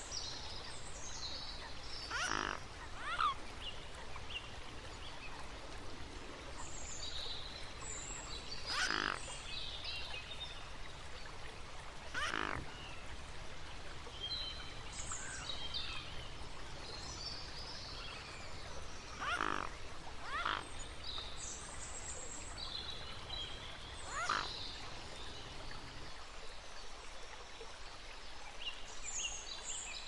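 Pond-side wildlife sounds: small birds chirping and twittering throughout, with a louder, pulsed animal call about seven times at irregular intervals of a few seconds.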